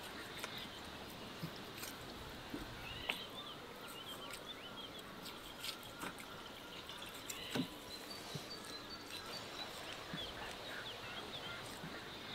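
Knife cutting a raw lamb leg on a wooden cutting board, with scattered knocks, the two loudest a few seconds in and past halfway, over steady small-bird chirping.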